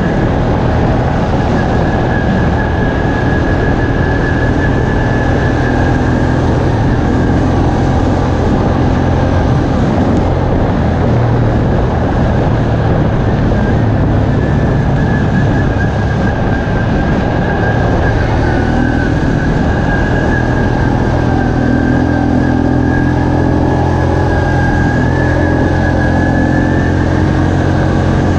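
Off-road vehicle engine running steadily at cruising speed on a dirt trail, under heavy wind and tyre noise, with a thin high whine over it.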